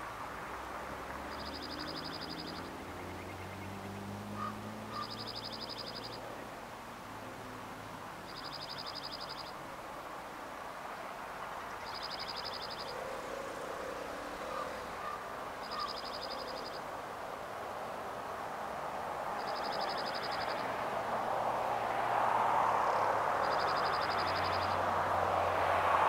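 Male dark-eyed junco singing: a high, rapid trill on one pitch lasting about a second, given seven times, every three to four seconds. Under it runs a steady low rumble and hiss that grows louder near the end.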